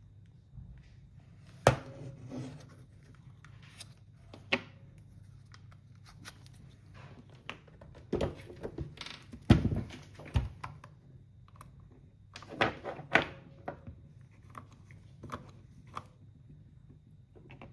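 Irregular knocks and clicks of a plastic Ryobi power-tool battery pack being handled. The loudest thunks come about 2, 10 and 13 seconds in.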